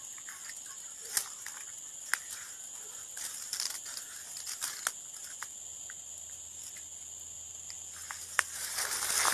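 Steady high-pitched insect chorus, with scattered short clicks and rustles, the loudest a little after one and two seconds in and near the end.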